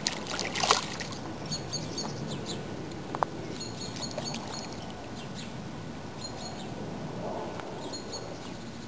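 A hooked pike thrashing at the water's surface, with loud splashes in the first second, then quieter sloshing as it swims near the bank. Short, repeated high bird chirps come and go in the background.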